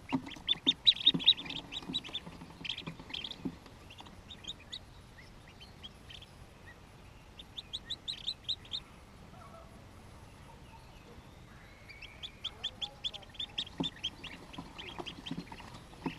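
Newly hatched hooded merganser ducklings peeping in quick runs of short high calls: one run right at the start, another at about eight seconds, and a longer one from about twelve seconds. A few soft knocks come from the ducklings moving about.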